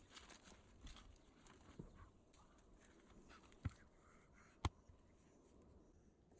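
Faint scuffling and rustling of a large dog moving about and lying down on dry earth and leaves. Two sharp clicks about a second apart near the middle.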